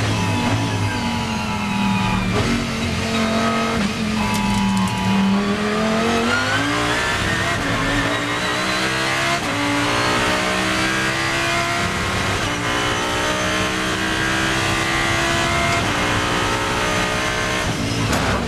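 Audi R8 LMS GT3's V10 engine heard from the cockpit at racing speed. The revs fall in steps through downshifts under hard braking, then climb through the gears with three quick upshifts, and fall again as it brakes near the end.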